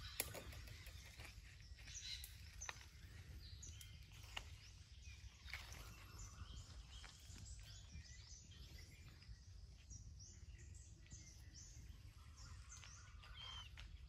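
Near silence: faint forest background with short high bird chirps scattered throughout over a low steady rumble.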